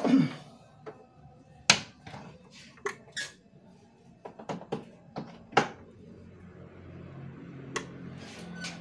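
Scattered sharp clicks and light knocks of hard objects being handled on a cup sealer and workbench, the loudest about two seconds in. A faint low hum comes in near the end.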